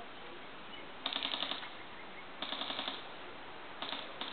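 Airsoft electric gun firing on full auto: two half-second bursts of rapid clicking shots, then two short bursts near the end.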